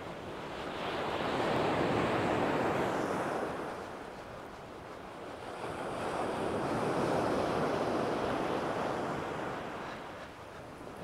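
Sea waves breaking and washing up a shingle beach in two slow surges: the first swells about a second in and fades, the second builds about halfway through and fades near the end.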